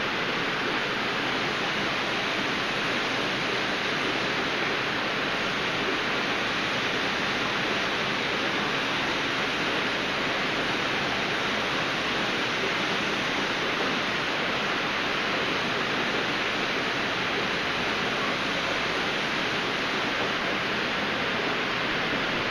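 Steady rushing water from aquarium filtration.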